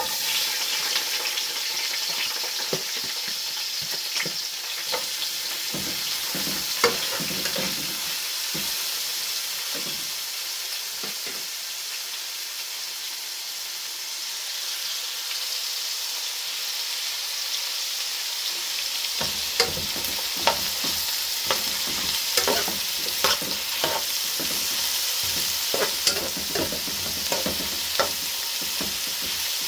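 Vegetables sizzling as they fry in coconut oil in a pot, with a spoon clicking and scraping against the pot as they are stirred. The clicks come more often in the second half.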